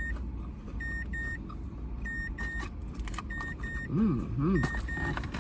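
Car warning chime beeping in pairs, a double beep about every 1.2 seconds, over the low hum of the car. A short wavering voice sounds about four seconds in.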